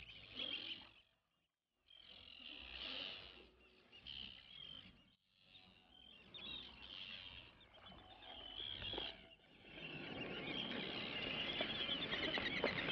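Terns calling in short chirps on and off. From about ten seconds in, a denser chorus of bird calls over a steady rushing noise.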